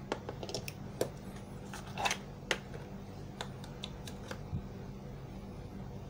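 A string of light clicks and taps, about a dozen in four seconds, from hands handling the charging cable, test leads and analogue multimeter on a workbench, over a steady low hum.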